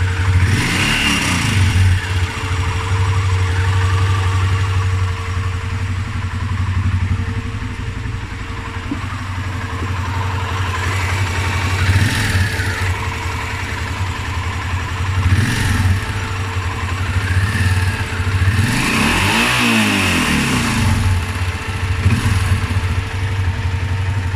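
Honda Transalp 600 V-twin motorcycle engine idling with a steady whistle over it, blipped several times with short rises and falls in revs, the longest about twenty seconds in.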